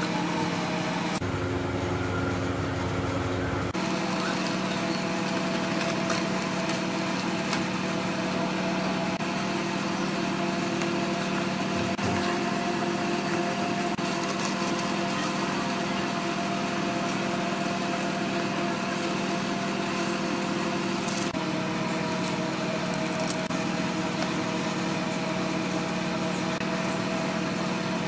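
Steady mechanical motor hum with several fixed tones over a light hiss, shifting slightly in pitch at a few sudden points.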